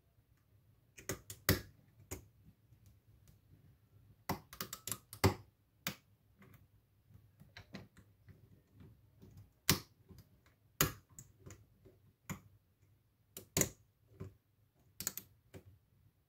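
Irregular sharp metallic clicks and taps of a lock pick and an Allen-key tension wrench working inside a pin-tumbler lock cylinder, some in quick clusters, others single.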